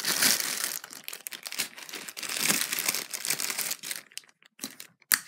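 A dense crinkling crackle that thins out about three and a half seconds in, then a few sharp clicks of orange clear glue slime as a hand grabs and squeezes it, the loudest click near the end.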